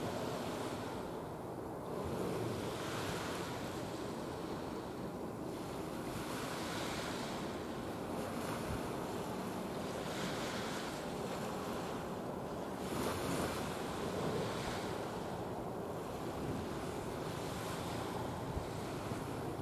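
Wind on the microphone and the wash of waves: a steady rushing noise whose hiss swells and fades every two to three seconds.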